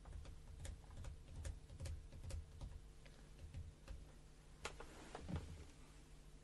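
Quiet radio-studio room tone: a faint steady hum with scattered soft clicks and ticks, two slightly louder ones about two-thirds of the way through.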